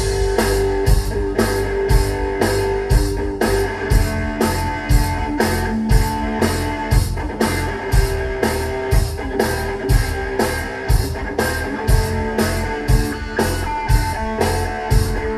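Live rock band playing an instrumental passage: electric guitar over bass and drum kit, the drums and cymbals keeping a steady beat of about two hits a second.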